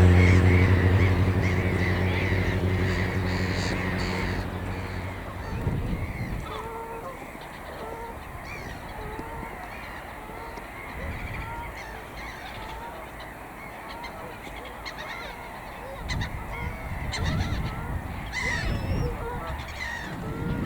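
A flock of geese honking, with many short calls repeated throughout and growing louder and busier near the end. A low, steady engine drone fades out over the first few seconds.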